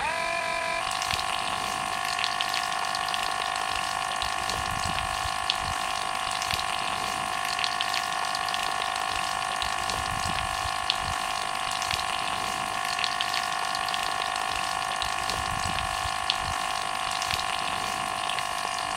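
Homemade mini water pump driven by a small DC motor on a 9-volt battery, running with a steady high whine that settles within the first second. Water from its outlet tube splashes alongside.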